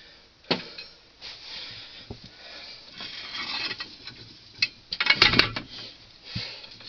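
Steel extension rods of a hand soil auger being uncoupled and handled: scattered metal clinks and knocks, with a louder cluster of clanks about five seconds in and soft scraping between.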